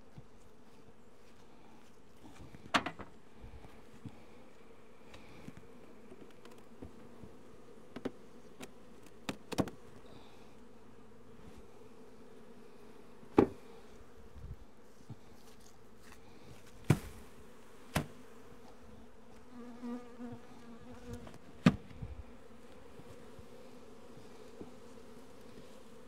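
Honeybees buzzing steadily in a thick cloud around an opened hive. About eight sharp knocks of hive boxes and a hive screen being lifted and banged down as the bees of a queenless, drone-laying-worker colony are shaken out.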